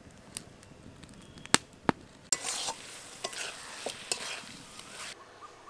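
A few sharp crackles from a wood fire, then, about two seconds in, chicken pieces in masala sizzling in a kadai as a spatula stirs and scrapes them. The sizzle cuts off suddenly near the end.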